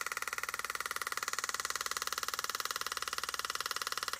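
Pneumatic hand-engraving tool hammering a graver into a metal plate, a rapid, even tapping that holds a steady rate while a line is cut.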